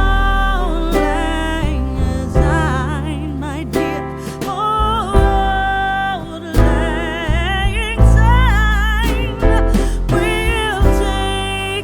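A song with a singing voice, guitar and a heavy bass beat, laid over the flight footage.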